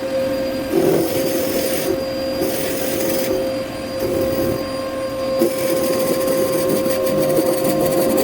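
Wood lathe running with a steady motor whine while a turning tool cuts a spinning olivewood blank in short repeated passes, each pass a hissing scrape.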